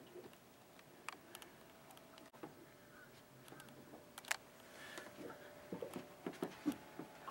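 Faint handling noise from a handheld camera: scattered small clicks and light knocks, more frequent in the second half, over a faint steady hum.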